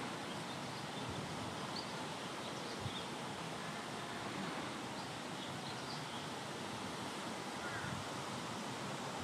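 Steady rushing background noise, with a few faint, brief high chirps scattered through it.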